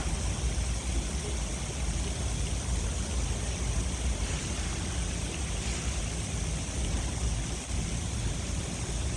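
Steady rush of fountain water, with a low rumble underneath.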